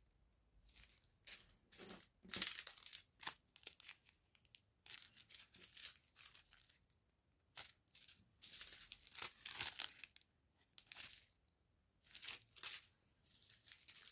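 Small plastic sachets of round diamond-painting drills crinkling and rustling as they are handled, in short irregular bursts.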